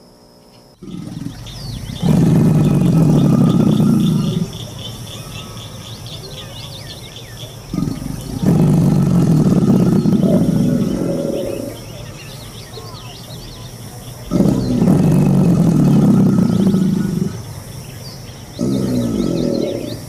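American alligator bellowing: four deep bellows of two to three seconds each, a few seconds apart, the last one shorter. Faint high chirping runs underneath.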